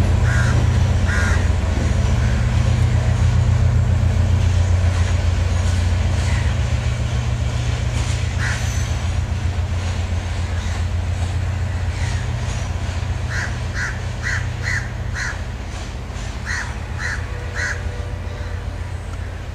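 Diesel train's engine and running gear making a steady low rumble that slowly fades, with crows cawing over it: a couple of caws about a second in, a run of five about two-thirds through and three more near the end.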